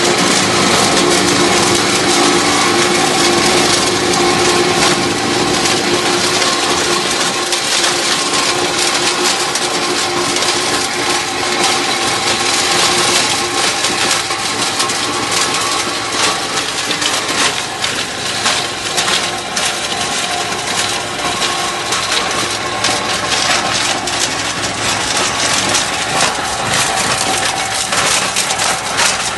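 Kubota M135X tractor's four-cylinder turbo diesel engine running steadily under load while a TMC Cancela stone crusher's rotor smashes stones and crop residue, with a dense, continuous rattle of rock impacts.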